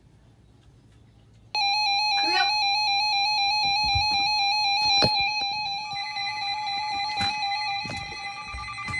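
Weather alert radio's alarm going off for an incoming special marine warning: a loud, shrill, rapidly warbling electronic tone that starts suddenly about a second and a half in, with a second, higher tone joining about midway. A few sharp clicks sound over it.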